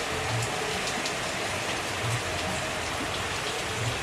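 Heavy rain falling steadily, with individual drops ticking on a nearby surface.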